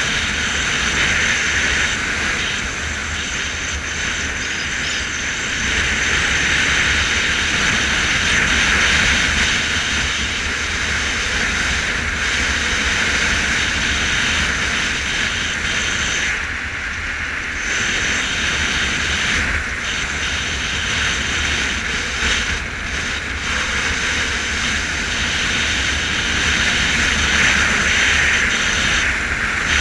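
Motorcycle riding at a steady cruising speed: engine drone mixed with wind and road noise on a camera mounted on the bike. The hiss drops briefly about halfway through.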